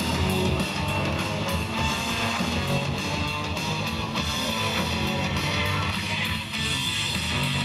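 Music led by guitar, with a steady beat.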